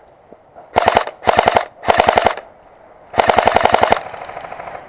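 Airsoft gun firing on full auto: four bursts of rapid, evenly spaced shots, three short bursts in quick succession followed by a longer burst near the end.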